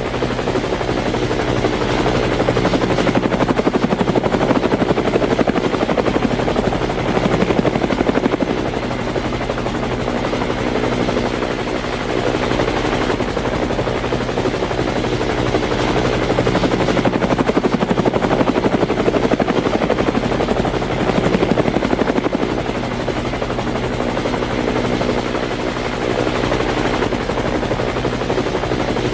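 Helicopter with its rotor blades beating in a rapid, even chop, running steadily with slight swells in loudness.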